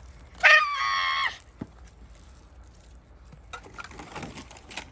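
A young child's high-pitched squeal, held for about a second near the start, followed by faint clicks of small plastic toy pieces being handled.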